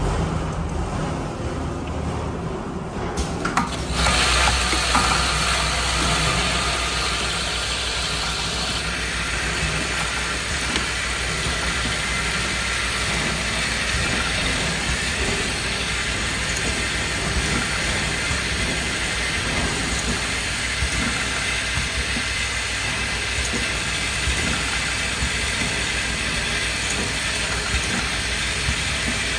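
Automatic perfume filling, crimping and pressing machine starting up after a click about three seconds in and then running steadily, with an even hiss and occasional small clicks; a faint high whine joins about nine seconds in.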